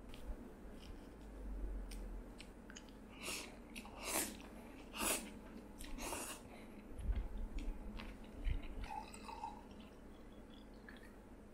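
Cold soba noodles being slurped from a bowl in several short slurps, with chewing between them, followed by a few soft low knocks.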